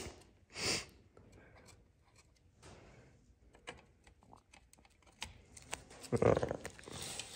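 Quiet handling noises: scattered light clicks and taps, then a louder stretch of rubbing and scraping about six seconds in.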